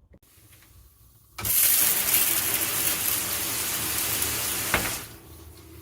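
Handheld shower head spraying water, starting suddenly about a second and a half in and cutting off with a click near the end, then a fainter steady hiss of water from a leaking shower hose.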